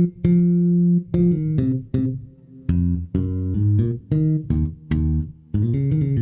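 Loud bass line of plucked-sounding notes, one after another in a quick run, each starting sharply and several cutting off abruptly, played at high level for a gain check.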